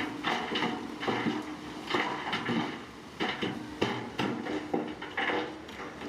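Heavy earthmoving machinery at work: a steady diesel engine hum under irregular, repeated metallic clanks and knocks, several a second.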